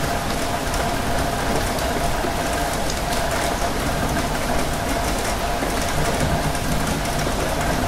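Steady rain on a window heard from inside a moving tram: an even rain hiss with scattered drop ticks over a low rumble and a steady hum.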